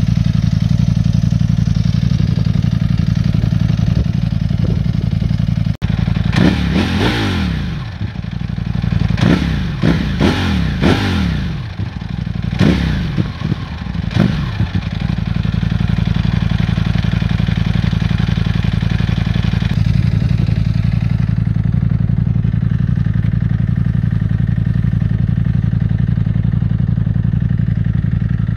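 Ducati Panigale V4 S's V4 engine idling steadily through its exhaust. From about six to fifteen seconds in it is blipped in a run of quick revs, each falling back, before settling back to idle.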